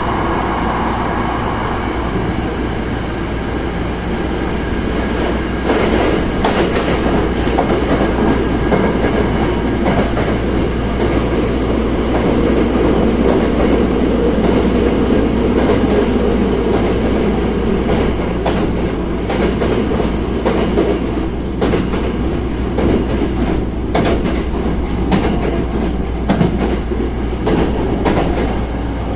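Hankyu 1000 series electric train running at speed, heard inside the car: a steady wheel-on-rail rumble with irregular short clacks from the track.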